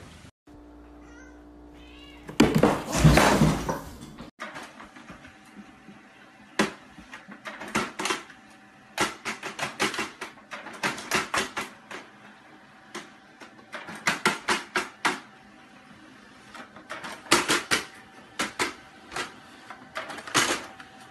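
A multifunction printer running and feeding paper: clusters of rapid clicks every second or two over a faint steady hum. About two seconds in, before the printer is heard, there is a loud rush of noise.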